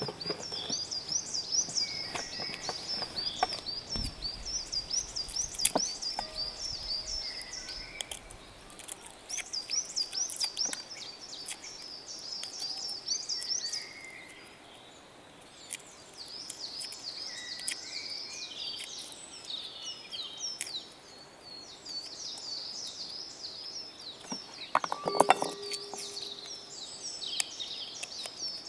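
Birds chirping in fast, repeated phrases, with scattered light clicks and taps from hands working at the table. Near the end there is a short clink with a brief ring.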